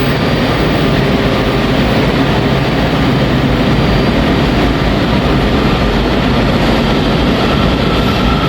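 Washington Metro Red Line subway train pulling into an underground station: a loud, steady rumble and rush of noise. A high, steady squeal comes in near the end as it slows.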